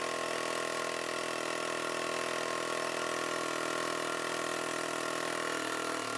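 Snap-on PH3050B pneumatic air hammer running steadily with an even, unbroken buzz as it drives an old hardened-steel bushing out of a John Deere opener arm through a steel removal tool.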